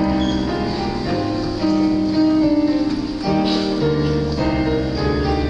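Instrumental hymn music: sustained chords moving steadily from one to the next, playing the processional hymn or its introduction.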